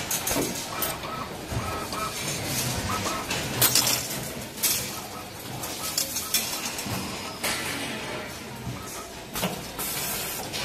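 Irregular metallic clinks and clatter of bent steel wire parts being handled, heard over steady workshop machine noise.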